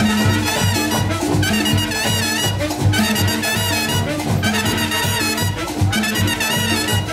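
A Latin band playing salsa-style music: brass horns play short repeated phrases over a steady percussion rhythm.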